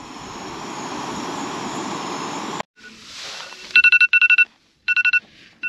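Jetboil backpacking stove burning with a steady hiss while its water comes up to steam. After a break, a phone's timer alarm goes off: groups of rapid, high beeps on two fixed tones, much louder than the stove.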